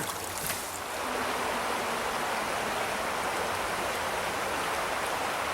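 Steady rush of a trout stream's flowing water, a little louder from about a second in.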